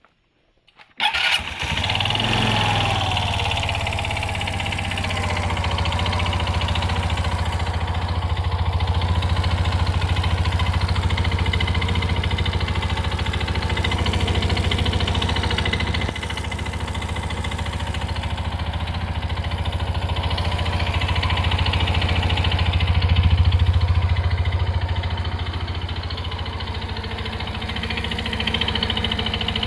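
Suzuki Address V125G scooter's 125 cc single-cylinder four-stroke engine starting about a second in, then running at a steady idle. It has an abnormal noise that the owner, having found iron filings in the drained oil, suspects is a failed crankshaft bearing.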